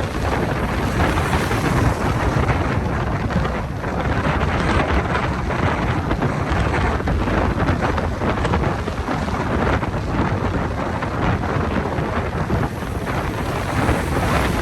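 Strong wind gusting and buffeting the microphone with a deep, steady rumble, over the rush of waves.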